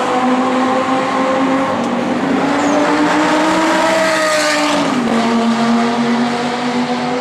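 Lamborghini Gallardo V10 engine accelerating down a straight, its note climbing slowly in pitch. The car rushes past about four and a half seconds in, and the note then drops sharply in pitch as it moves away.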